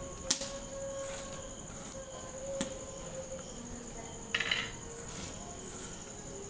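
Crickets chirring steadily in the background, with a few light clinks and a brief scrape of a steel spoon against a steel bowl as gram flour and hot oil are stirred.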